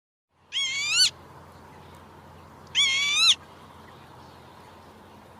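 Northern lapwing calling: two wheezy, rising-then-dipping "pee-wit" calls about two seconds apart, each about half a second long.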